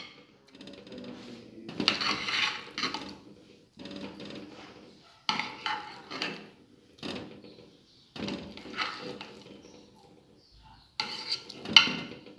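A metal spoon scrapes and clinks against glass baking dishes as pumpkin purée is scooped from one dish and dolloped into another. The sound comes in a string of short bouts every second or two.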